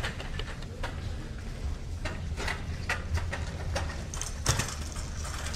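Handling noise: irregular clicks and knocks over a steady low hum, the loudest knock about four and a half seconds in.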